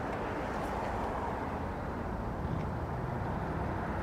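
Steady outdoor background noise of road traffic, a low even rumble.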